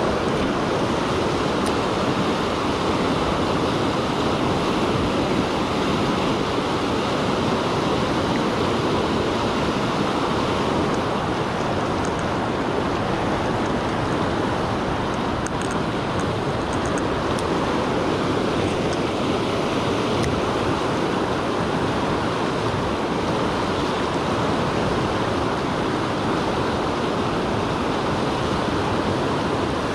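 River rapids rushing over rocks: a steady, loud rush of whitewater.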